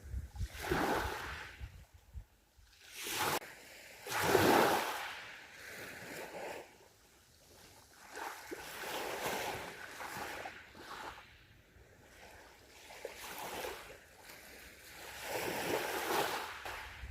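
Sea waves washing onto a beach, several surges swelling and fading away, the loudest about four seconds in.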